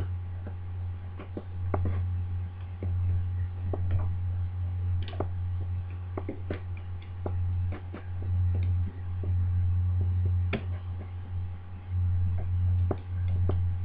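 Lever pick clicking irregularly against the levers inside a Union 5-lever British Standard mortice deadlock as the levers are lifted and set, over a steady low hum.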